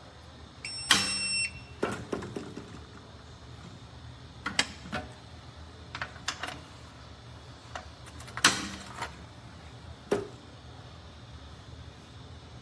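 A short electronic beep from a biometric handgun safe about a second in, followed by several sharp clicks and knocks as the safe is handled.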